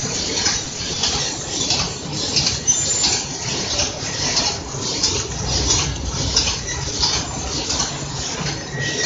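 Automatic cutlery and napkin wrapping and packaging machine running, with a steady, evenly repeating clatter.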